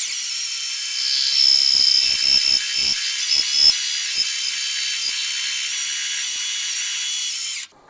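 Grizzly G4003G metal lathe running, with its turning tool cutting a metal workpiece in the spinning chuck: a steady high-pitched whine and hiss, with a few low knocks in the middle. It cuts off suddenly near the end as the lathe is stopped.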